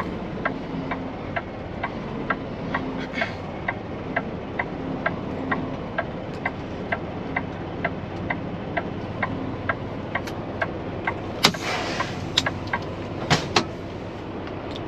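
Semi-truck turn-signal indicator ticking steadily, about twice a second, over the low running of the tractor's engine inside the cab as it turns slowly. Near the end a short hiss and a few sharp knocks cut in.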